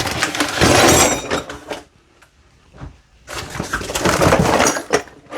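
Crackling, rustling handling of packaging as a parcel of tools is opened, in two bursts with a pause of about a second and a half between them.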